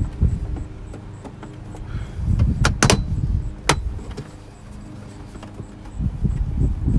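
Plastic interior trim panels of a Tesla Model S being handled and pried at, with dull knocks and rubbing and three sharp plastic clicks a little under three seconds in.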